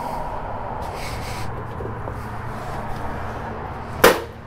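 A low steady hum with a brief hiss about a second in, then a single sharp knock near the end.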